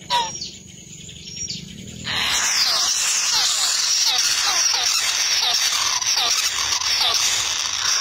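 Kingfisher nestlings begging: a couple of single falling chirps, then about two seconds in a sudden shrill chorus of rapid, repeated falling chirps that continues as the chicks gape for food.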